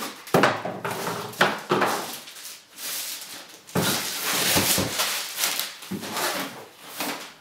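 Cardboard box and packaging being handled and opened: a run of scraping, sliding and rustling with a few sharp knocks, with a longer sliding rasp a little past the middle.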